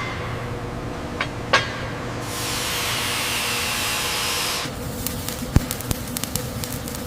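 Factory floor sounds over a steady machine hum: two metal knocks, then a hiss lasting a couple of seconds, then a quick run of clicks and taps with one sharper knock.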